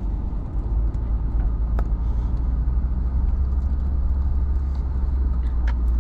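Car engine and road rumble heard from inside the cabin while driving slowly: a steady low drone, with a light click about two seconds in and another near the end.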